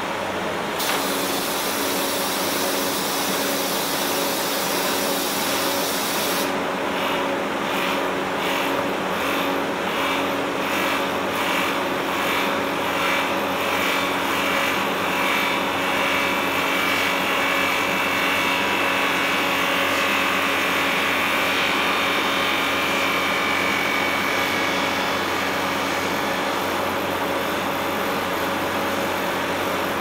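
Wood lathe running, a steady hum with a hiss over it. About six seconds in the hiss changes and pulses evenly, about twice a second, for several seconds. Later a higher, brighter hiss comes in for a while.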